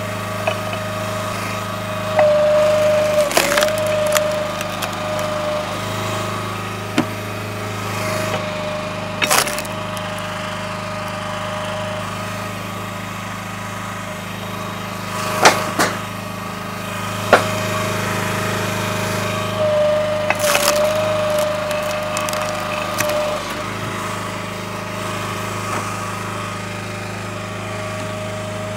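Split-Fire 3490 log splitter's fuel engine running steadily, its pitch dipping briefly twice, while wood cracks and splits sharply about five times as rounds are pushed through the wedge.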